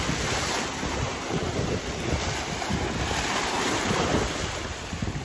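Sea waves breaking and washing in a steady surging rush, fading out near the end.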